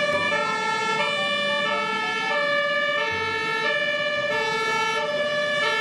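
Two-tone emergency siren of an airport fire crash tender, switching between a high and a low pitch about every half second.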